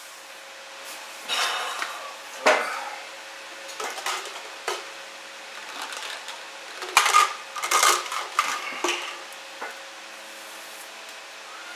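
Irregular clinks and clatters of hard objects being handled and knocked together, with the loudest strikes about a third of the way in and a quick cluster past the middle, over a faint steady hum.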